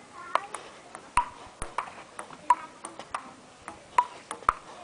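Table tennis rally on an outdoor concrete table: the ball clicks off the paddles and bounces on the tabletop in a quick back-and-forth, each hit with a short ringing ping.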